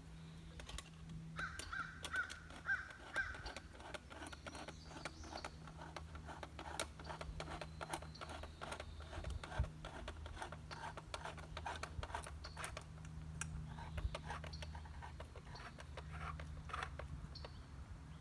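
Rapid, irregular clicks and scraping from a brass nut and washer being tightened down onto a pool light fixture to snug its seal.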